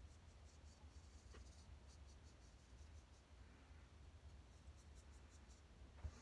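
Faint scraping of a straight razor cutting through about two days' lathered stubble: short strokes in quick clusters. A soft knock sounds near the end.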